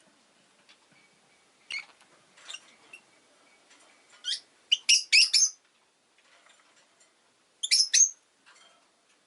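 Rosy-faced lovebird calling in short, high-pitched chirps: a few faint single chirps, then a loud burst of several around the middle and another loud pair near the end.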